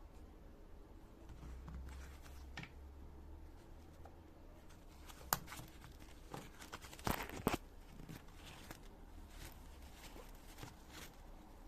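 Handling noises from a nylon tool sheath and its contents: scattered light clicks and rustles, with a short burst of tearing, rasping strokes about seven seconds in.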